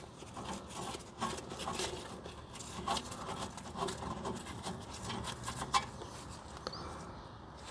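Irregular light clicks, taps and rubbing of parts and tools being handled, with sharper knocks about three seconds in and again near six seconds.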